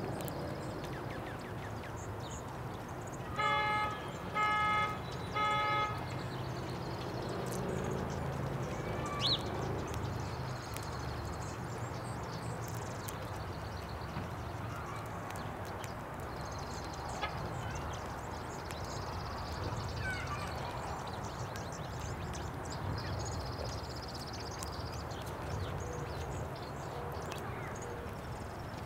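Outdoor ambience with a steady low rumble, broken about three and a half seconds in by three short, steady-pitched car-horn honks in a row; a few brief bird chirps follow.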